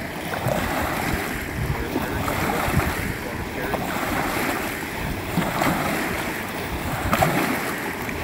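Small waves lapping and splashing in against a muddy riverbank, a steady surging wash, with wind buffeting the microphone.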